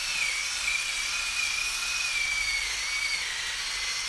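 Cordless drill running steadily with a high whine, its bit cutting into the head of a seized, rounded-out disc rotor bolt to drill the head off. The whine dips slightly in pitch about three seconds in.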